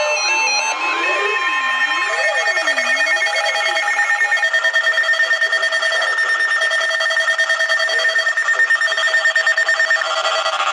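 Several Emergency Alert System and NOAA weather radio alert tones sounding at once from different receivers, announcing an incoming alert. Steady alarm tones overlap throughout, and for the first four seconds or so a tone sweeps up and down about once a second.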